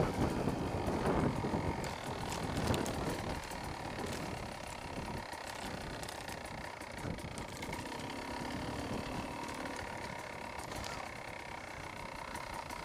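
Beta 300 RR two-stroke enduro motorcycle engine running steadily as the bike is ridden along a muddy, rutted lane. It is louder for the first few seconds, then settles lower.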